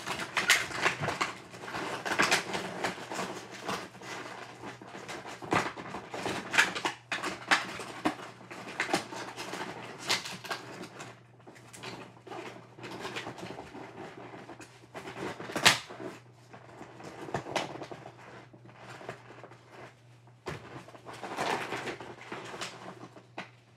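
Small paperboard cube boxes being handled and packed into a larger cardboard box: irregular scraping, rustling and light knocks of cardboard.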